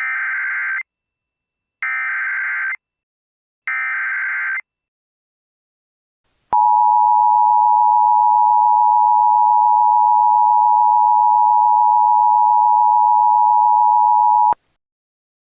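Emergency Alert System header and attention signal. Three short bursts of screechy digital data tones come about two seconds apart, then after a brief gap the steady two-tone EAS attention signal sounds for about eight seconds and cuts off abruptly.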